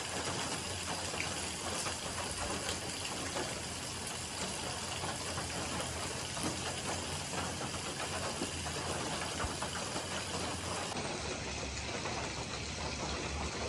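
Pork belly cubes frying in oil in a pan, a steady sizzle with fine crackles as the meat starts to brown.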